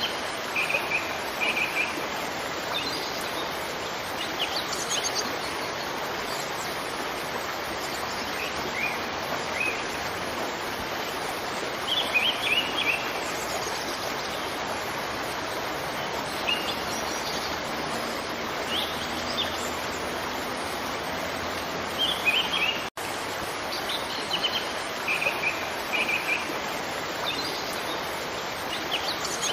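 Steady rush of a waterfall with small birds chirping in short bursts over it. The sound cuts out for an instant about 23 seconds in.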